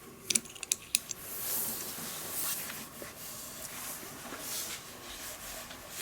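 A handheld radio and its coax cable being unhooked and handled: several small sharp clicks in the first second, then a few seconds of rustling handling noise.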